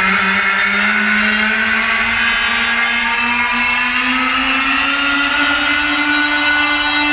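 Electronic dance music build-up played loud over a festival PA: a long synth riser climbs slowly and steadily in pitch over a hissing noise sweep, with no beat.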